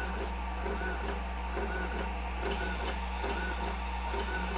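Snapmaker 2.0 linear-module stepper motors jogging the laser tool head down in short repeated moves. Each move is a brief whine that rises and falls in pitch, a little more than once a second, over a steady low hum.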